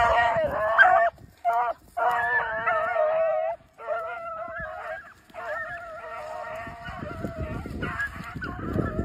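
Several beagle-type hounds baying together as they run a scent trail, in long wavering bawls whose voices overlap, with brief breaks. A low rumble of noise joins near the end.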